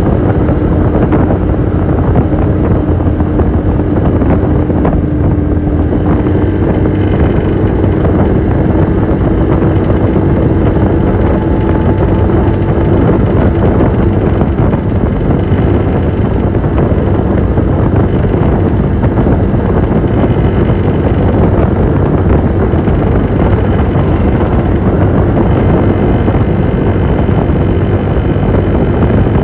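Piaggio X9 500 maxi-scooter engine running steadily with a rattle, the noise its owner is recording as a fault. A steady hum creeps slightly up in pitch.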